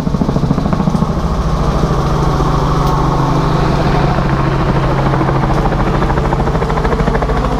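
A motor vehicle's engine running steadily and close by, with a fast, even pulse.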